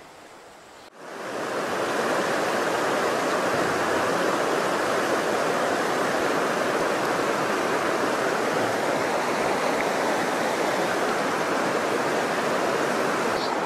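Water rushing through shallow, rocky river rapids over boulders: a steady, even rush that fades in about a second in.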